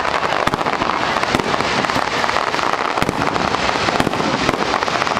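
Aerial fireworks going off in quick succession: a dense continuous crackling with several louder bangs from bursting shells.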